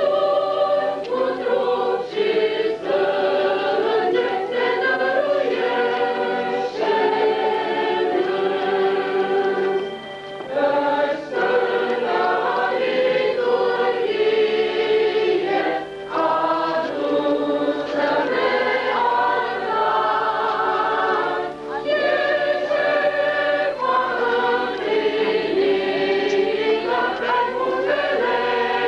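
A church choir singing a hymn in several voices, phrase after phrase with brief pauses between.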